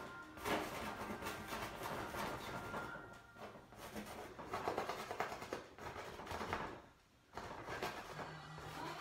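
Paint being scrubbed and scraped onto a stretched canvas on an easel in quick, irregular strokes, with a brief pause about seven seconds in.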